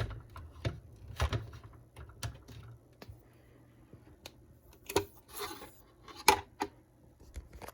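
Scattered light clicks and taps, irregular and a second or so apart, from handling the reassembled Axial SCX24 mini RC crawler, with a couple of short rustles.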